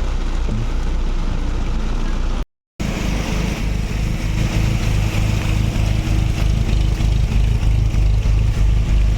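Engine of an off-road 4x4 running steadily on a slow forest track. The sound breaks off completely for a moment about two and a half seconds in, then the engine returns a little louder with a faint pulsing.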